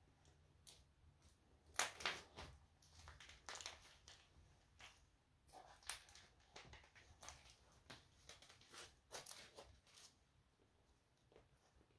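Dry flakes crunching and crackling under the soles of Nike Air Max Plus (Tn) sneakers as they step and grind on a hard floor, in scattered crackles and scuffs. The loudest crunch comes about two seconds in, and they mostly stop about ten seconds in.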